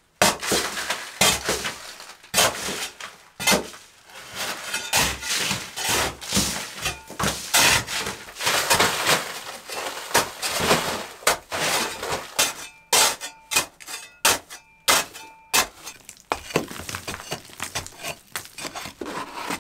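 A hatchet hacking at an adobe wall, knocking off old clay plaster in irregular sharp strikes about one or two a second, with loosened clay clattering down. Several strikes about two-thirds of the way through carry a short ringing tone.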